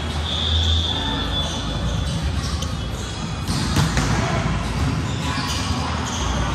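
Volleyball gym din: scattered thumps of volleyballs being hit and bouncing on the hardwood courts, over the chatter of players' voices. A short high squeak comes about half a second in.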